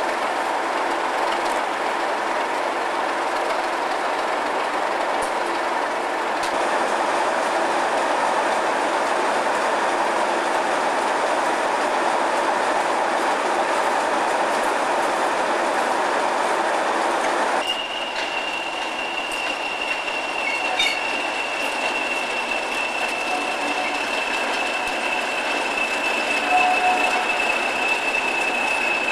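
An English Electric Class 37 diesel locomotive's V12 engine running at idle, a dense steady drone. About two-thirds of the way through it cuts to a Class 40 diesel locomotive idling, its engine quieter under a steady high-pitched turbocharger whistle.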